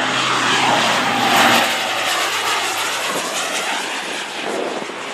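Airliner engines roaring as the aircraft passes, loudest about a second and a half in, then slowly easing off.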